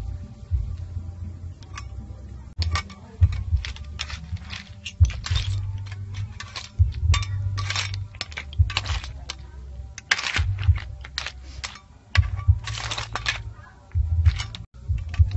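Snail shells clattering and clicking against a metal pan and each other as they are stir-fried with a spatula, in quick irregular rattles.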